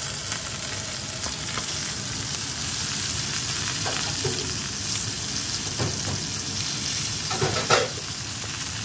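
Flour-dredged soft-shell crabs frying in hot oil in a cast iron pan: a steady sizzle with a few louder pops and spits, the loudest near the end.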